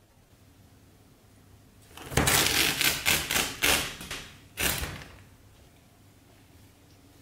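Paper crackling and tearing as a cat pushes through a hole in a paper wall: about two seconds of dense rustling and ripping, then a shorter burst a moment later.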